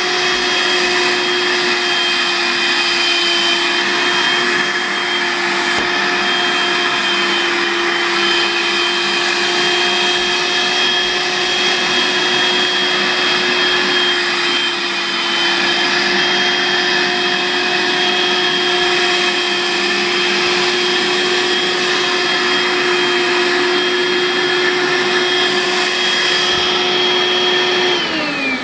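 Makita 18V cordless stick vacuum running steadily, a motor whine over the hiss of rushing air, as it draws the air out of a futon compression bag. Just before the end the motor is switched off and its whine starts to fall in pitch as it winds down.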